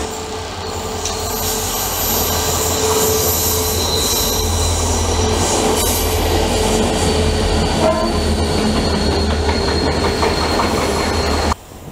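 Two coupled Renfe class 333.3 diesel locomotives running light past at speed: a steady low diesel rumble with wheels on the rails and a thin high whine. The sound cuts off abruptly near the end.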